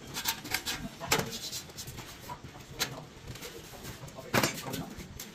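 Irregular knocks and taps of construction work, one every second or so, the loudest about four seconds in.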